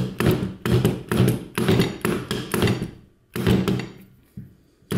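Hammer handle tapping repeatedly against the inside of a steel connecting-rod cap, about three sharp taps a second with a short break about three seconds in, to knock the cap loose from the dowel sleeves that locate it on the rod.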